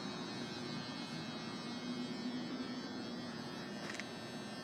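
Steady low background hum, with a brief faint click about four seconds in.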